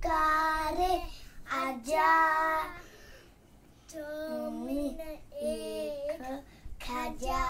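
A young child singing in drawn-out, gliding notes, in short phrases with a pause about three seconds in.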